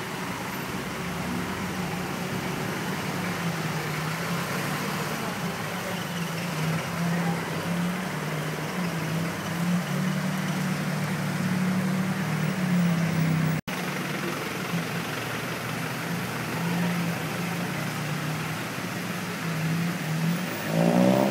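2008 Toyota Yaris's 1.5-litre four-cylinder VVT-i engine idling steadily, a low even hum with a slight waver.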